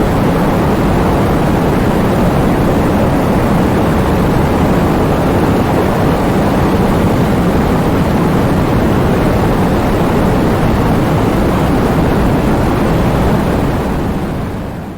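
Heavy rainstorm: a steady, dense rush of rain with a deep low rumble underneath, with no separate thunderclaps. It fades out near the end.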